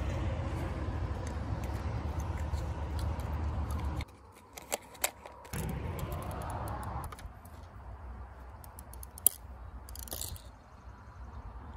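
Small clicks and metal clatter of a Mamiya C33 twin-lens reflex being loaded with 120 roll film, with one sharp louder click near the end, over a steady low rumble that drops out about four seconds in and returns briefly.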